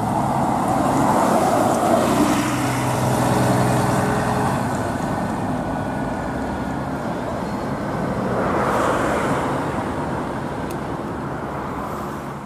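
City bus engine running as the bus pulls away, over steady road traffic noise from passing cars. The traffic swells twice, about a second in and again about two-thirds through.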